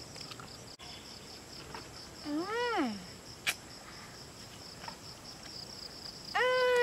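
Crickets chirping in a steady, rapidly pulsing high trill. Over it come two drawn-out pitched calls that rise and then fall, the second louder and longer, near the end, and a single sharp click in the middle.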